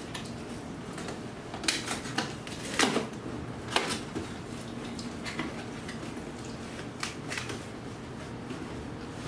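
A cardboard Priority Mail box being torn open by hand at its tear strip: irregular crackling rips and rustles of cardboard, the loudest a few seconds in.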